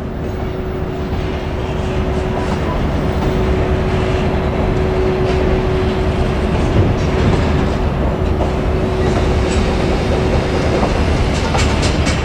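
Freight train hauled by an EF81 electric locomotive rolling past, with a steady rumble of wheels on the rails. A steady tone runs through it and stops about eleven seconds in. A quick run of wheel clicks over rail joints comes near the end.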